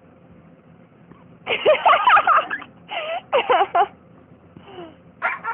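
Excited yellow Labrador retriever whining in four or five bursts of sliding, rising-and-falling pitch, starting about a second and a half in.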